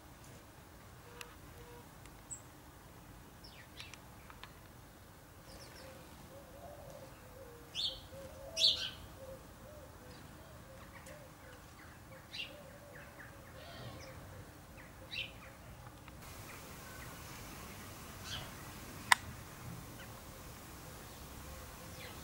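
House sparrows chirping in short, scattered calls, with a louder cluster of chirps about eight seconds in. A single sharp click sounds near the end.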